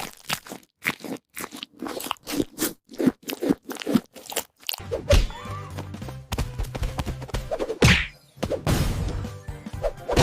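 Rapid crunching and chewing of hard candy, about four or five crunches a second, for about the first five seconds. Then music with a steady low beat takes over.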